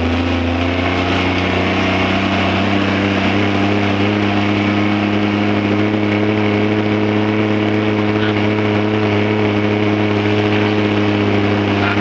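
Car engine and road noise heard from inside the cabin while driving. The engine's pitch rises slightly in the first couple of seconds, then holds steady at a cruising pace.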